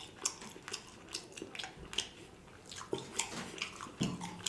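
A person chewing a mouthful of food with the mouth sounds plain: irregular wet smacks and clicks, several a second.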